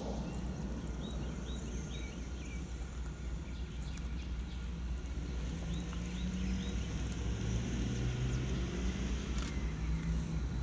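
Distant diesel locomotives of a freight train approaching, a low hum over a steady rumble that grows stronger in the second half. Birds chirp in two short series of quick calls.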